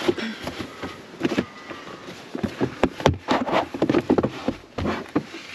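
Handling noises from a caravan's cassette toilet: an irregular string of clicks, knocks and scrapes of hard plastic as the canister and its compartment are worked on, busiest a little past the middle.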